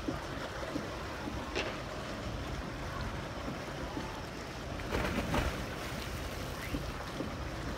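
A boat under way along a rocky shore: a steady rumble of the motor and rushing water, with wind on the microphone. A brief louder rush comes about five seconds in.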